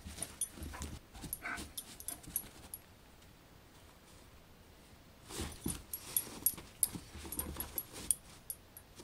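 Basset hound playing rough with a person's hand, making short dog noises and scuffling as it mouths and paws at the hand. The sounds come in scattered short bursts, with a quieter stretch of about two seconds in the middle.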